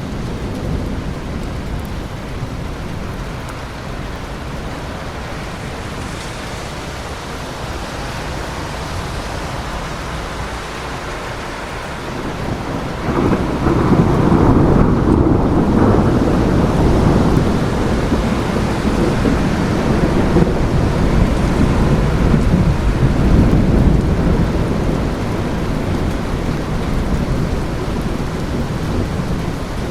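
Steady rain with a long roll of thunder that swells in sharply about 13 seconds in and rumbles on, slowly dying away over the next ten seconds or so.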